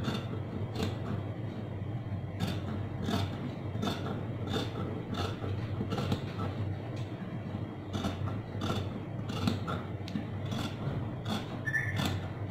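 Dressmaker's shears cutting through layered cotton fabric along a curved line, a short crisp snip as the blades close, repeated about every 0.7 s.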